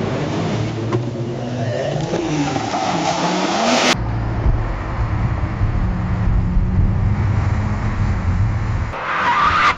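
Car engine revving, its pitch rising and falling, cut off sharply about four seconds in and replaced by a steady low engine rumble. Near the end a hissing tyre skid starts to build.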